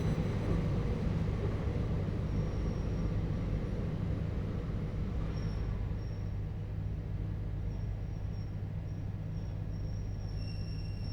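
Running sound inside a JR Hokkaido 721 series EMU motor car with a Toshiba GTO inverter, slowing for its stop: a steady low rolling rumble that gradually quietens. A high electric whine cuts out at the start, and faint high brake squeals come and go, growing steadier near the end.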